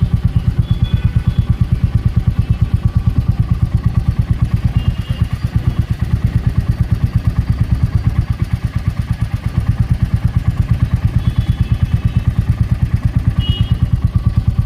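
Royal Enfield 350's single-cylinder four-stroke engine idling steadily, its exhaust thumping about seven to eight times a second.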